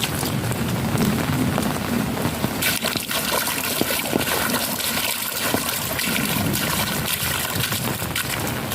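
Steady rain falling, with many small drops ticking and pattering over a continuous hiss; a low rumble runs underneath, and the hiss grows stronger about three seconds in.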